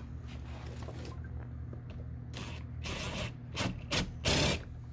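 Scraping and rubbing as the car's plastic door trim panel is handled, with a handful of short scrapes in the second half, the last the loudest, over a steady low hum.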